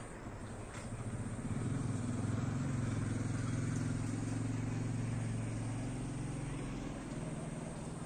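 A passing motor vehicle's engine: a low drone that swells in about a second in, holds for several seconds and fades near the end.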